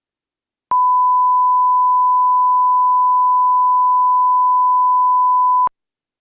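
A loud, steady 1 kHz line-up test tone of the kind that goes with colour bars. It sounds for about five seconds, with a click where it switches on and off.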